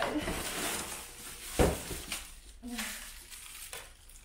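Cardboard box of a stick vacuum being shaken upside down, its contents rustling and sliding inside, with one loud thump about a second and a half in. Plastic-wrapped parts rustle near the end.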